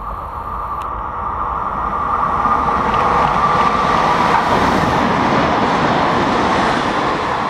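A regional passenger train running through the station and passing close by. The rolling noise of wheels on rail grows louder over the first few seconds as it nears, then holds steady as the carriages go past.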